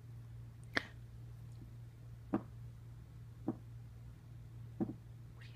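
Dog biting down on a rubber chew toy, making four short squishy clicks at uneven gaps of about one to one and a half seconds, over a steady low hum.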